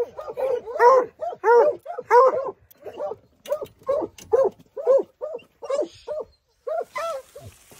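Plott hounds barking in quick, repeated short barks, about two to three a second, stopping shortly before the end.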